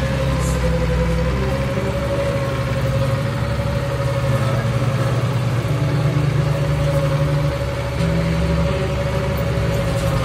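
Zetor 7340 Turbo tractor's four-cylinder turbodiesel engine running steadily, heard from inside the cab, with a steady high whine over the low drone.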